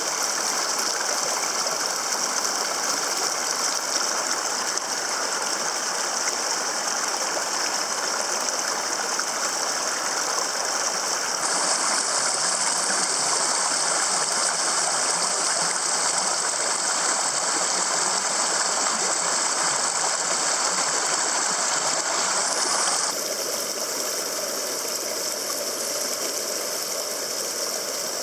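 A small mountain waterfall: water pouring and splashing over rocks in a steady rush. The tone of the rush changes abruptly twice: it turns brighter about a third of the way through, then drops a little quieter about two-thirds through.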